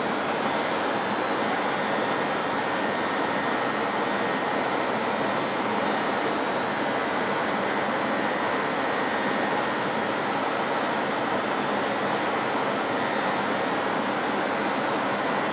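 Steady rushing air from a laboratory biosafety cabinet's blower, at an even level, with a faint steady high tone running through it.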